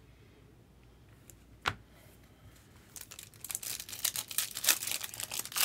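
A 2024 Bowman Sapphire trading-card pack being torn open by hand, its wrapper crinkling and tearing in a dense crackly run from about three seconds in. A single sharp click comes a little before.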